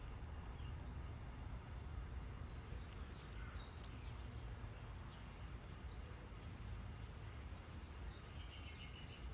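Quiet outdoor backyard ambience: a steady low rumble, a few faint clicks, and a faint short call from a small animal or bird near the end.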